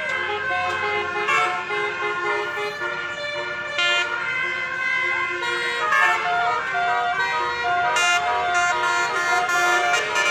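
Indonesian bus 'telolet' multi-tone air horn playing a tune. Several horn tones sound together and change pitch in short steps from note to note.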